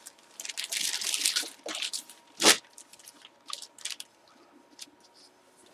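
Crinkling and rustling of packaging being handled, in short irregular bursts, with one sharper crack about two and a half seconds in.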